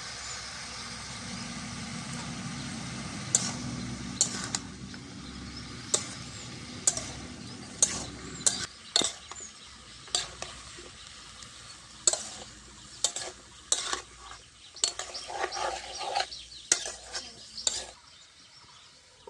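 Mixed vegetables with spices and peas frying in oil in a pan, sizzling, while a spatula stirs them with repeated sharp clinks and scrapes against the pan. The sizzle is strongest in the first half and dies down; the scraping and clinking is busiest in the second half and stops shortly before the end.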